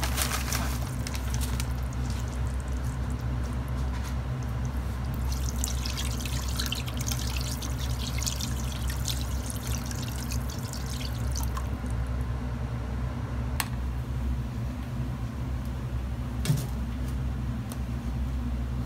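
Large aluminium pot of simmering broth: a splash as something is poured in at the very start, then the liquid bubbles and trickles with a crackle of small pops for several seconds in the middle. A steady low hum runs underneath, and two sharp clicks come in the latter half.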